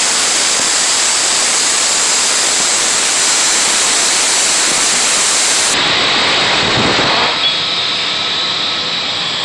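Blacksmith's forge running as it heats up, giving a loud, steady rushing noise. Its character changes abruptly about six seconds in.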